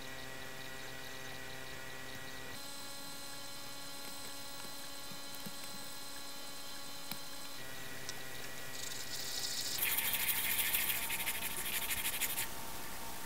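Steady droning tones that change pitch twice, and about ten seconds in, a few seconds of loud scratchy scraping as a red 3D-printed plastic nose part is rubbed on sandpaper.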